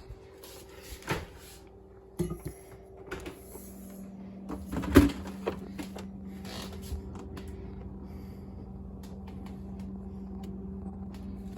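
Knocks and clatters of a refrigerator door and its contents being handled, the loudest a sharp knock about five seconds in, over a steady low hum that sets in partway through.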